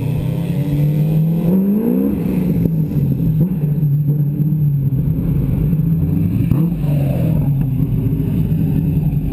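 Open kart's engine running steadily at low revs, with one brief rev rising in pitch about two seconds in.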